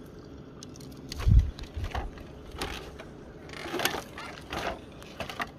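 Handling noises: a heavy low thump about a second in, then scattered light rustles and clicks.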